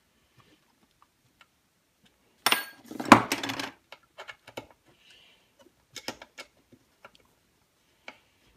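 Metal hand tools clattering against the saw and workbench as one hex key is set down and a T-handle hex driver taken up, about two and a half seconds in. After that come light, scattered metal clicks as the driver works the screws of a chainsaw's chain catcher.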